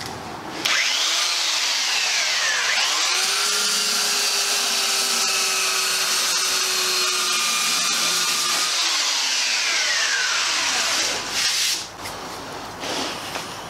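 Electric belt sander running against epoxy fairing compound on a plywood hull side. It starts up just under a second in, and its motor pitch sags and recovers as it is pressed into the work. It winds down with a falling whine about eleven seconds in.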